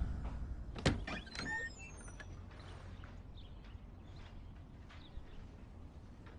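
Quiet background with a low steady hum, a single sharp click about a second in, and a few faint high chirps just after it.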